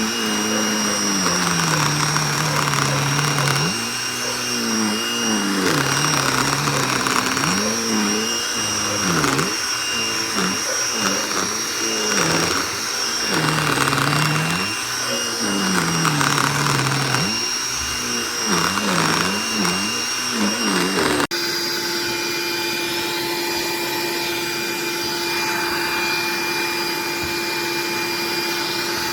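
Vacuum cleaner motor running, its pitch swinging up and down again and again. About three-quarters of the way through it cuts abruptly to a steady, higher-pitched hum.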